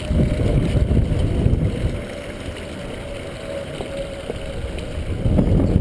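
Wind buffeting the microphone outdoors: a loud, gusty rumble that eases off about two seconds in and picks up again near the end.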